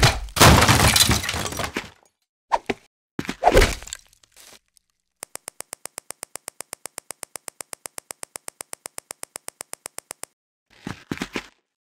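Stop-motion sound effects. A loud crash-and-smash starts things off, followed by a couple of short knocks. Then comes a rapid, perfectly even run of sharp clicks, about nine a second, lasting about five seconds.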